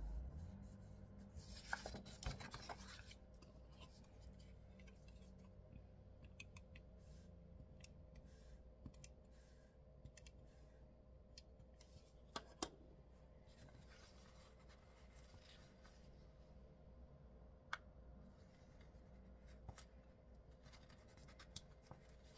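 Faint handling of loose paper planner pages on a desk: a short scratchy slide of paper about two seconds in, then near silence with a few light clicks and taps.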